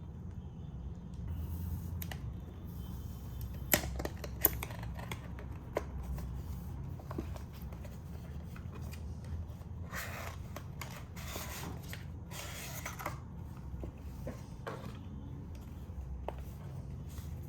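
Small handling sounds over a low steady hum: a few sharp clicks or taps about four seconds in, two of them loud, then a run of rustling about ten to thirteen seconds in.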